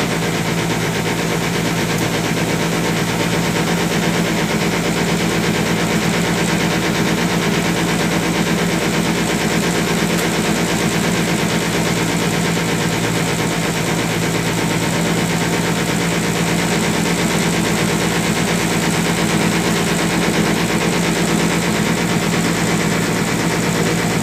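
Small passenger ferry's engine running steadily under way, heard from aboard: a constant, even drone with a low hum that holds the same pitch and level throughout.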